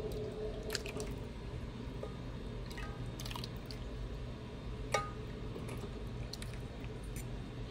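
Gravy being spooned over baked chicken wings in a baking dish: soft wet drips as it lands, with a few light clicks of a metal spoon, the sharpest about five seconds in. A steady hum fades out in the first second.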